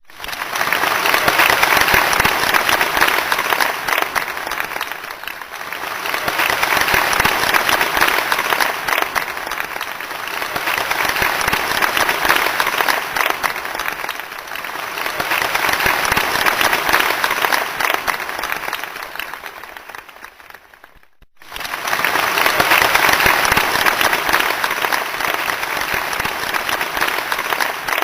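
Large theatre audience applauding: dense clapping that swells and eases in waves, fades out almost completely about twenty seconds in, then starts again suddenly at full strength.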